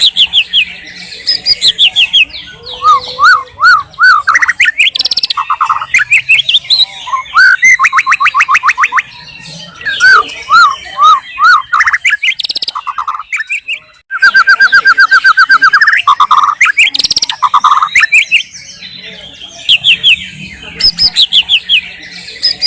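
White-rumped shama singing a loud, varied song: runs of fast repeated notes, rapid trills and rising-and-falling whistled notes, phrase after phrase with brief pauses.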